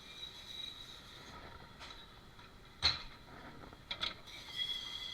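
A few sharp clinks and knocks of dishes being handled at a commercial dish station, the loudest about three seconds in and two close together near four seconds, over a steady high-pitched machine whine.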